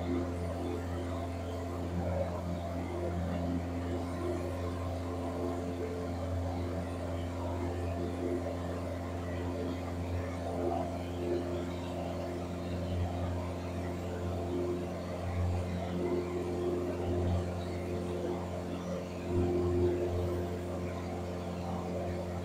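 Piper PA-28 Warrior light aircraft's four-cylinder piston engine and propeller droning steadily in cruise, heard inside the cabin.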